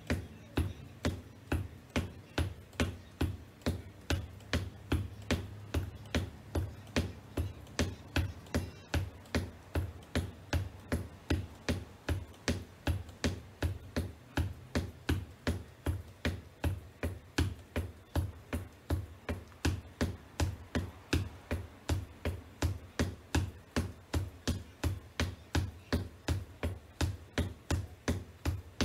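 Black wedge-heeled ankle boots tapping on a hardwood floor in a steady, even rhythm of about three taps a second.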